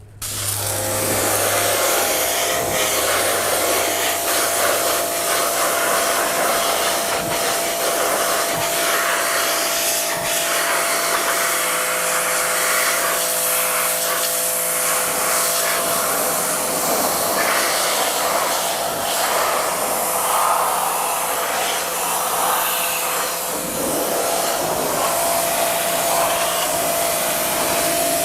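Pressure washer running and spraying, a steady hiss of water with a steady whine from its pump. It starts suddenly and holds at an even level.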